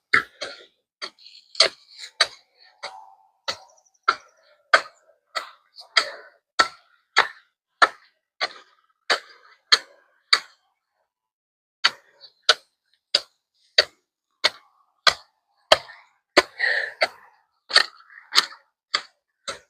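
A garden hand tool striking the soil over and over in a steady rhythm, about two sharp strokes a second, with a short break about halfway through.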